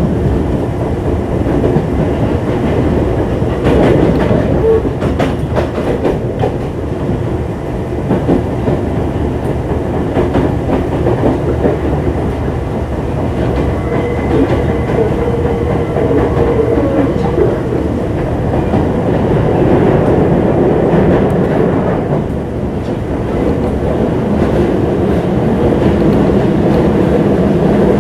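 205 series electric train running, heard from inside a motor car: a steady rumble of wheels on rail with a few rail-joint clicks, and a faint hum from its inner-fan traction motors around the middle.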